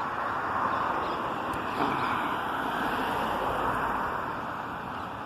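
A vehicle driving past on the street, its engine and tyre noise swelling and then fading.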